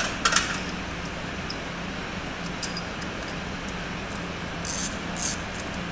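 Scattered light metallic clicks and two brief scrapes as valve springs, retainers and a valve spring compressor tool are handled on an LS engine's cylinder head, over a steady low hum.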